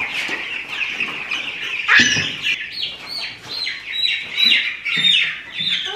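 A group of young Cornish cross meat chicks peeping, many short high calls that slide down in pitch, repeating over one another without a break. One louder knock about two seconds in.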